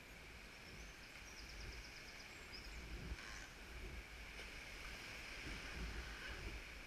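Sea water lapping and sloshing around a kayak, with small paddle splashes and knocks.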